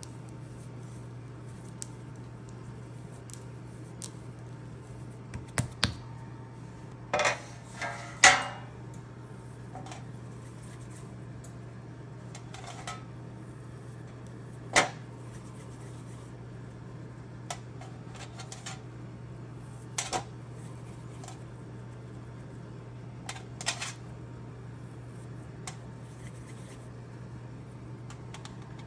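Hands handling soft cookie dough and a metal baking sheet: scattered light taps, knocks and short rustles, the loudest about eight seconds in, over a steady low hum.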